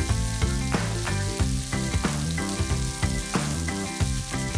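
Background music with a steady beat over sliced mushrooms and leek sizzling in oil in a frying pan.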